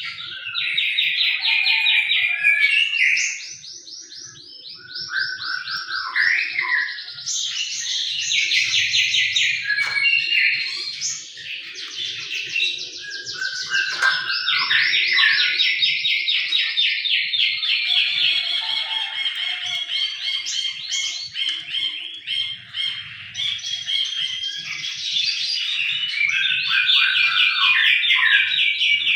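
Songbird singing a long, fast, chattering song of rapid trills and chirps, with brief pauses a few seconds in and again about halfway through.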